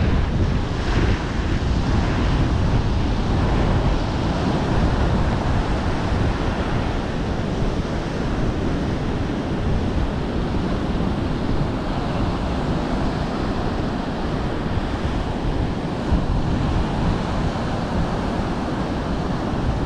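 Surf breaking on a sandy beach, a steady wash of waves, with wind buffeting the microphone.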